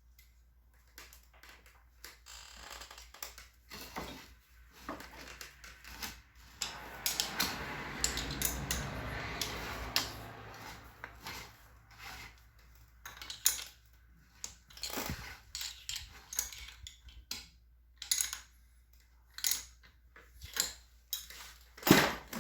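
Hand tools and small metal parts clinking and tapping as screws are tightened, with a few seconds of denser scraping noise about a third of the way in and a sharp knock near the end.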